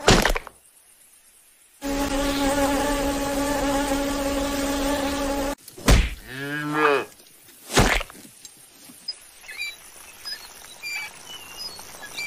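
A fly buzzing steadily for about four seconds, then a cow giving one low moo that rises and falls in pitch, framed by a few dull thuds. Faint short chirps follow near the end.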